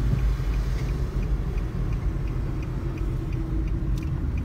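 Steady low rumble of a car's engine and tyres heard inside the cabin while driving. A faint, even ticking runs about two and a half times a second from the turn-signal indicator.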